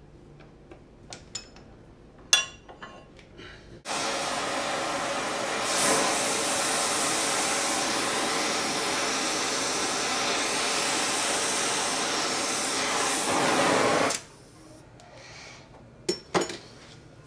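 A few light metal clinks, then a gas torch flame hissing loudly and steadily for about ten seconds, starting and cutting off suddenly, as it heats a steel crank web to expand it for a shrink fit. Two sharp metal clanks near the end.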